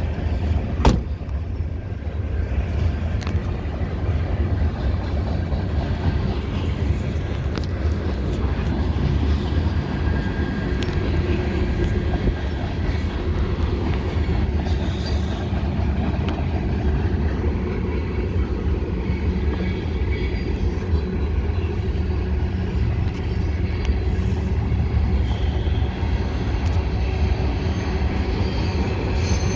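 BNSF freight train rolling past close by, a steady heavy low rumble that goes on without a break. A single sharp knock about a second in.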